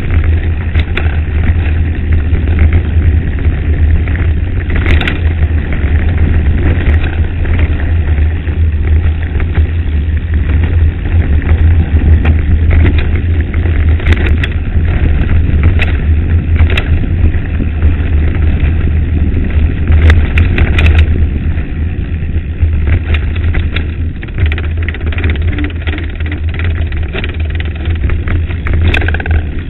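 Mountain bike riding over a rough gravel dirt road, heard from a bike-mounted camera: a steady low rumble of wind and tyre noise on the microphone, with scattered clicks and rattles from stones and the bike.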